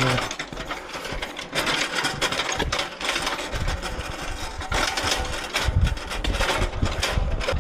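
Hand trolley loaded with a washing machine being wheeled over pavement: a continuous rattling rumble with many irregular knocks.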